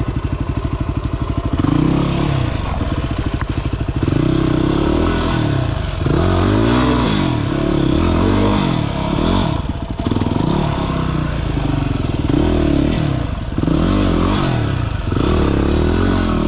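Single-cylinder enduro motorcycle engine under load climbing a steep rocky hillside. Its pitch rises and falls over and over as the throttle is worked on and off, after a steady lower run for the first second or so.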